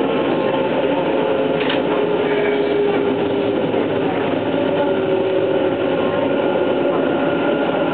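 Running sound inside a Hanshin 1000 series electric train at speed: a steady rumble of wheels on rail with several steady humming tones from the drive, and one short click about two seconds in.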